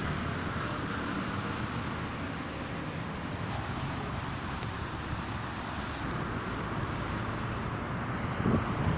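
Steady road-traffic rumble with wind noise on the microphone, and a brief louder bump just before the end.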